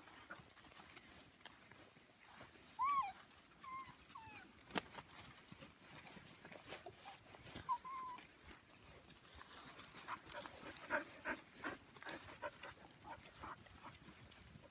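Puppies giving a few short, high whimpers and yips, about three, four and eight seconds in, over soft rustling and steps through grass and leaves.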